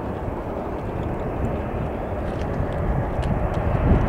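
Boeing 767-300ER jet engines running at a distance, a steady low rumble that grows a little louder near the end.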